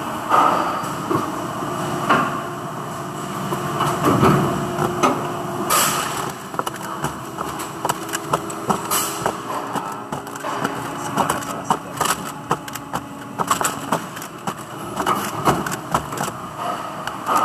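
Factory machinery running under a steady hum, with many short clicks and knocks as molded yellow plastic parts are handled and knocked against the workbench.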